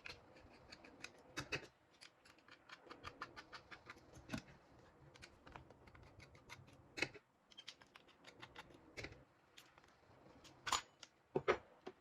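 Irregular small clicks and taps of plastic and metal, with a few louder knocks, as a laptop's hard disk is worked loose and lifted out.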